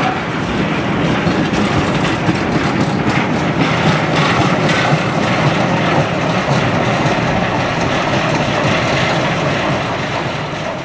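Wheels of a long freight train of cement tank wagons rumbling and clattering over the rails as the wagons roll past. The noise eases near the end as the tail of the train draws away.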